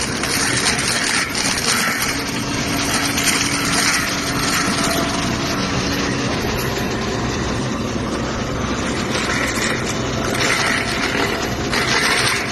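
A heavy machine running a high-speed brush-cutting attachment, a steady dense mechanical noise. A low steady hum in it drops out about halfway through.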